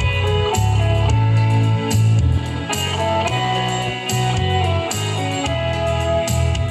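Instrumental music led by guitar, with a steady bass line and a regular beat.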